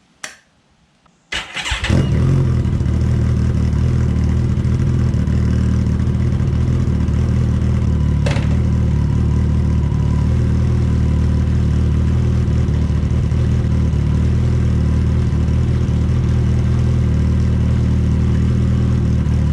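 A 2018 Kawasaki ZX-14R's inline-four engine turned over by the starter and catching within a second, then idling steadily. A short click comes just before the start, and another around eight seconds in.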